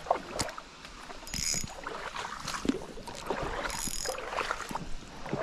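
Rustling and footsteps through dry grass and brush on a riverbank, with scuffs and knocks of handling noise close to the microphone. Two short high-pitched sounds come about two seconds apart.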